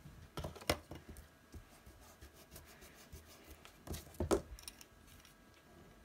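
Pencils being handled and set down on a sheet of paper on a desk: a few sharp clicks and taps about half a second in, and a louder cluster about four seconds in.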